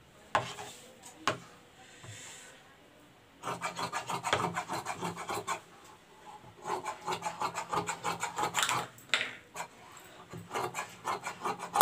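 Large tailor's shears cutting through dress fabric: a few lone clicks, then from about three seconds in three runs of rapid rasping snips with short pauses between.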